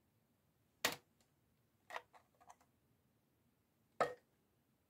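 A few short clicks and clacks of kitchen tongs picking par-cooked chicken pieces out of an aluminum foil pie plate and moving them to another foil pie plate. The loudest comes about a second in, two softer ones near the middle, and another strong click near the end.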